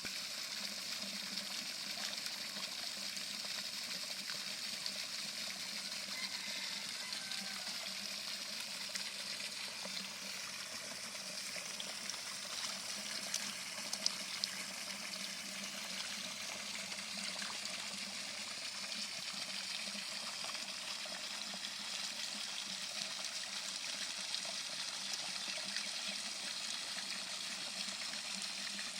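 Steady trickling of running water, with a few brief faint ticks about halfway through.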